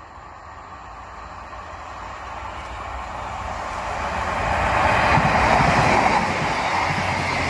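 Diesel multiple unit passenger train approaching and passing at speed. Its rush of wheel and engine noise grows steadily louder to a peak about five seconds in as the carriages go by.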